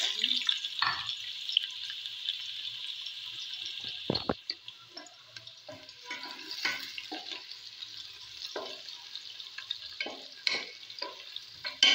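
Chopped onions sizzling in hot oil in a steel pot, loudest just after they go in and easing off slowly, with a wooden spoon scraping and knocking as they are stirred. A single low thump about four seconds in.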